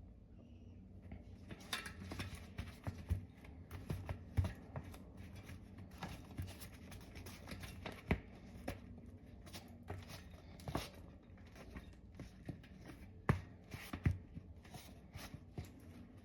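Bicycle tire being worked by hand onto the wheel rim: irregular rubbing, scraping and clicking of the rubber bead against the rim, with a few sharper knocks.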